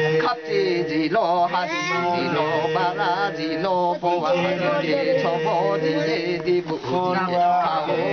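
Men chanting a Kulung ritual recitation in a sing-song melody, with long held notes and voices overlapping at times.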